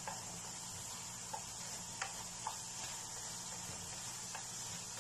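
A few light clicks of a wooden spatula against a nonstick frying pan as diced apples are stirred in their cooking-down sugar syrup, over a steady faint hiss.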